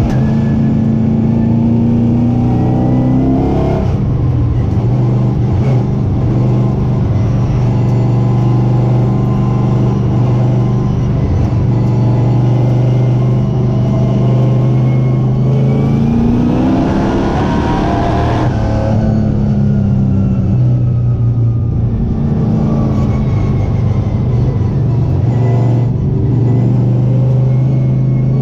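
Stock car's V8 engine heard from inside the cockpit, held at steady revs for long stretches. About four seconds in the revs dip and climb back; past the middle they rise for a couple of seconds and drop off sharply, then hold steady until they start climbing again near the end.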